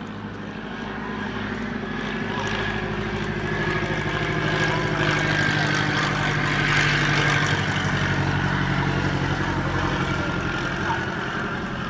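The engine and propeller of a Curtiss JN-4H Jenny biplane, its Hispano-Suiza V8, droning steadily as the plane passes overhead. The sound grows louder to a peak about six or seven seconds in, then eases off.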